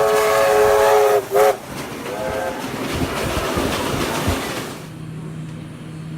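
Freight locomotive's multi-note horn holding a long blast that ends about a second in, then one short blast, over the rumble and clatter of the passing train. Near the end the train noise drops sharply, leaving a steady low hum.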